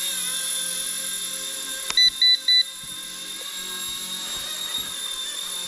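Mini electric RC helicopter hovering, its motor and rotors giving a steady high whine. About two seconds in, a click is followed by three short, loud electronic beeps.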